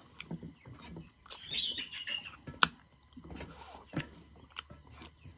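Close-up eating sounds: chewing and lip smacks while eating rice with nettle curry, with several sharp clicks scattered through.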